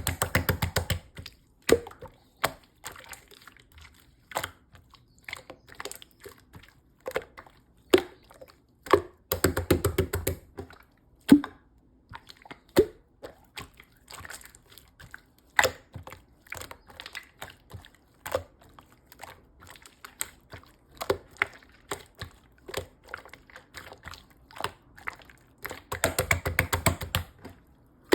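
Slime being pressed, stretched and folded by hand, giving scattered sharp clicks and pops as air pockets burst. Short spells of fast crackling come at the start, about ten seconds in, and near the end.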